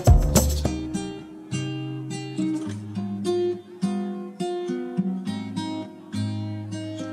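Background music: acoustic guitar playing plucked single notes in a slow melody. A percussive beat stops about half a second in.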